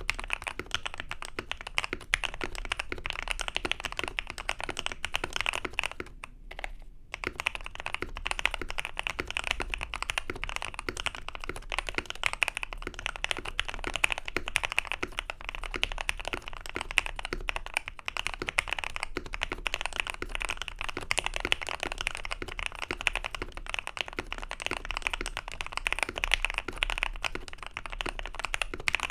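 Mechanical keyboard being typed on quickly and continuously, a dense run of key clacks, with a short pause about six seconds in.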